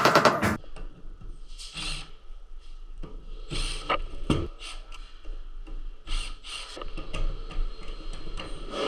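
Intro music cuts off about half a second in. After that come scattered knocks, scrapes and rubbing of materials being handled.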